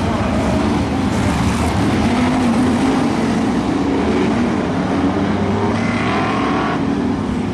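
Several BriscaF1 stock cars' V8 engines running around the oval: a loud, continuous mix of engine notes that rise and fall as the cars go by.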